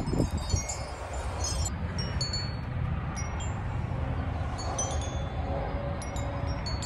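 Wind chimes ringing with scattered high, clear notes, over a steady low rumble of wind on the microphone.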